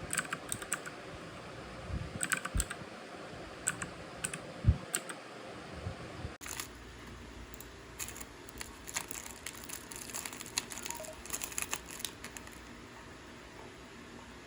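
Typing on a computer keyboard: irregular key clicks in short runs, busiest in the second half, over a steady low room hum.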